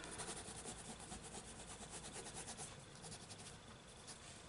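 Faint scratching of a white coloured pencil stroked repeatedly over a book page, blending white in.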